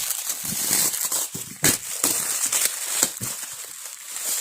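Gift packaging rustling and crinkling in the hands in a run of short crackles, as a parcel is handled and opened.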